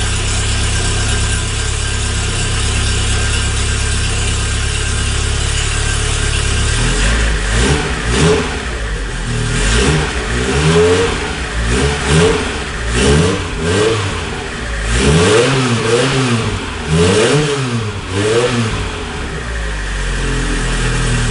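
Vauxhall Astra GTE Mk2 four-cylinder petrol engine idling, then blipped on the throttle about ten times in quick succession from about seven seconds in, the revs rising and falling each time, before settling back to idle near the end.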